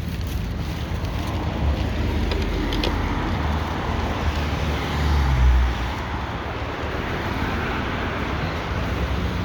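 Road traffic noise: a steady low rumble of passing vehicles, swelling louder for about a second around five seconds in.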